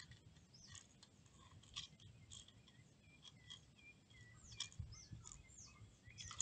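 Faint chirping of small birds: many short, high calls scattered throughout, with a few light clicks among them.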